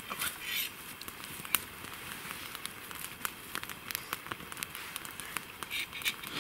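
Small wood campfire of twigs and branches crackling, with irregular sharp pops over a soft hiss and one louder pop about one and a half seconds in.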